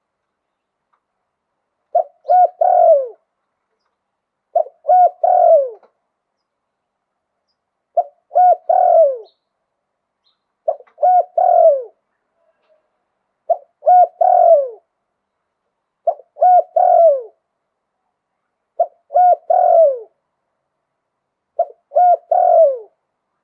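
Spotted dove cooing its song eight times at an even pace, a phrase about every three seconds. Each phrase is two short coos followed by a longer coo that falls in pitch.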